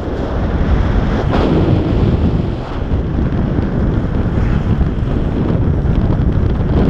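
Steady wind noise from air rushing over the microphone of a paraglider pilot's camera in flight.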